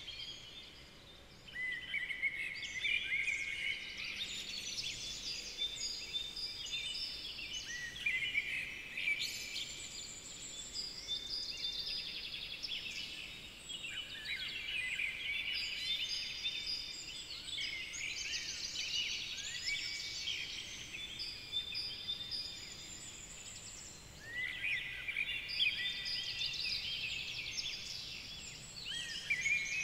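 Songbirds singing together, a dense chorus of chirps and trills. It fades briefly about a second in and again some six seconds before the end.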